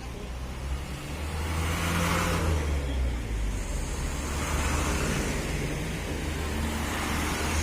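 Road traffic passing close by: a heavy vehicle's low engine drone with tyre and road noise swelling and fading as vehicles go past, loudest about two seconds in. No horn sounds.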